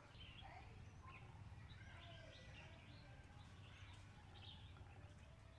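Faint bird chirps, short and scattered, over a low steady background hum.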